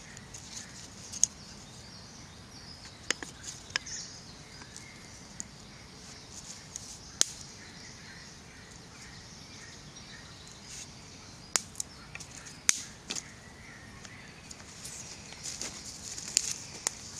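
Damp sticks clicking and snapping as they are stood up into a teepee fire lay: a dozen or so sharp, scattered clicks over a faint steady outdoor hiss.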